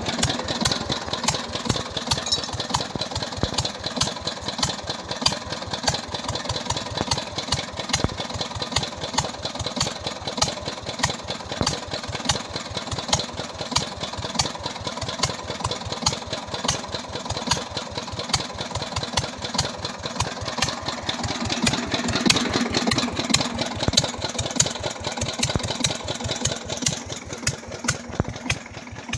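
Freshly rebuilt 18 HP KAM single-cylinder Peter-type diesel engine running steadily with an even firing beat, on test after a rebuild for oil starvation.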